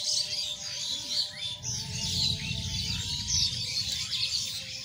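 Several small birds chirping and twittering together, many quick high calls overlapping without a break. A low rumble rises under them for a second or two in the middle, with a faint steady hum beneath.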